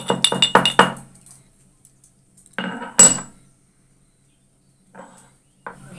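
Pestle pounding in a metal mortar, coarsely crushing black peppercorns: a quick run of about seven strikes in the first second. A few more strikes follow about two and a half seconds in, then one loud metallic clink that rings briefly.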